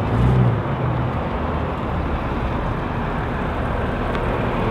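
Car engine running steadily at low revs, a low hum that swells briefly just after the start.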